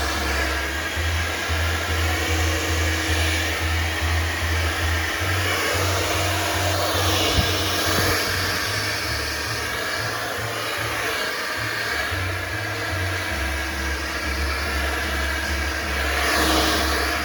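Background music with a deep bass line that steps between notes, over a dense, steady rushing hiss.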